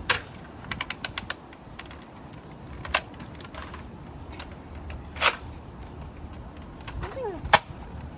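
Plastic clicks and knocks from a toy gun being handled: a sharp knock at the start, a quick run of about six small clicks about a second in, then single sharp clicks every two seconds or so, the loudest near the end.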